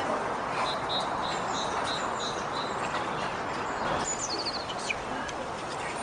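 Small songbird singing high, thin notes: a run of short, evenly spaced notes, then about four seconds in a high note followed by a quick descending trill. A steady background hiss runs beneath.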